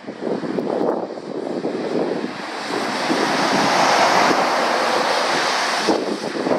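A heavy lorry passing on a wet road: a rushing hiss of tyres on the wet surface under the engine, building to its loudest about four seconds in.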